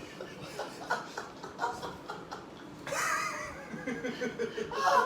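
People laughing in short chuckles, with a louder burst of laughter about three seconds in.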